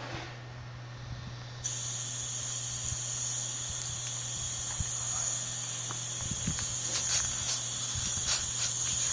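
Insects droning steadily and high-pitched, starting suddenly under two seconds in, over a steady low hum, with a few short clicks and knocks in the second half.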